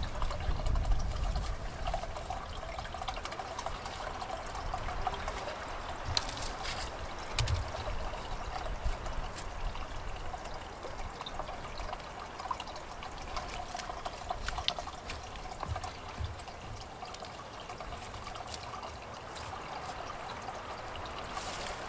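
Small garden-railway waterfall trickling steadily. Occasional soft scuffs and pats come from hands pressing soil around a newly planted bush.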